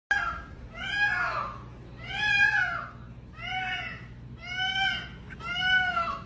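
A domestic cat meowing over and over, about once a second, each meow rising and then falling in pitch.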